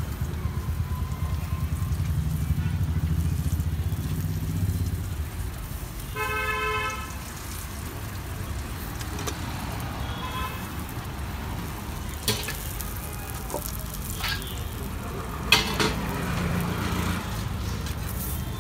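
Road traffic running close by, with a heavy vehicle's engine rumble at the start and a vehicle horn honking once for about a second, about six seconds in, then a fainter honk near ten seconds. Under it, oil sizzles steadily in a frying pan, and a few sharp metal knocks of a spatula on the pan come later.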